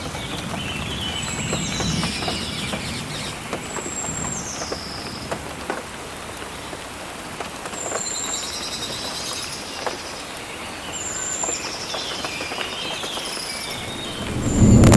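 Steady rain falling with birds calling over it in short whistled and descending notes. A low rumble of thunder builds near the end.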